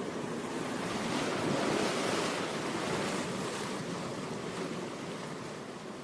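Ocean surf: a steady rush of waves that swells about two seconds in and slowly falls back.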